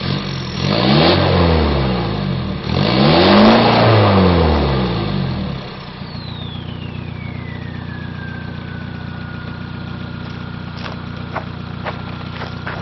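VW Golf IV 1.9 TDI four-cylinder turbodiesel through a straight-pipe exhaust, revved twice in quick succession, each rev rising and falling. It then settles to idle while the turbo whistle falls steadily in pitch and levels off into a steady high whine.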